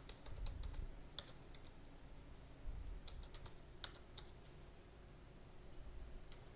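Faint computer keyboard typing: a few scattered keystrokes and short bursts of keys, with pauses between them.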